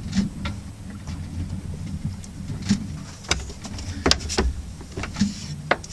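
Scattered knocks and creaks from a sailing yacht's hull and fittings as it moves at sea, over a steady low rumble.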